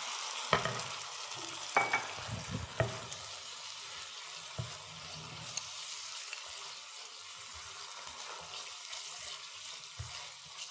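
Onion and tomato-paste sauce sizzling steadily in a hot frying pan as water is added to it in stages, with a spatula stirring and knocking against the pan a few times in the first three seconds.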